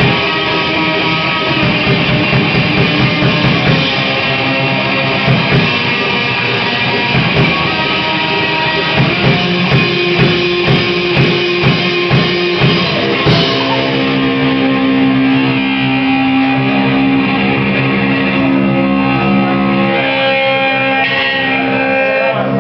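Rock band playing live, guitars over a drum kit. About two-thirds of the way through, the drum hits thin out and the guitars hold sustained, ringing chords.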